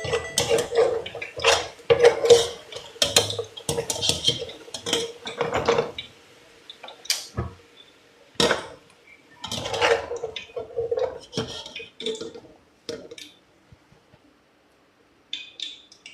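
Pots, pans and metal utensils clattering and knocking in a kitchen, an irregular run of sharp knocks and scrapes that dies away about thirteen seconds in, with a few faint taps near the end.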